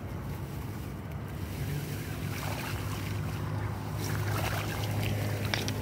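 Rice plants rustling and shallow paddy water sloshing as someone wades through a flooded rice field, over a steady low drone.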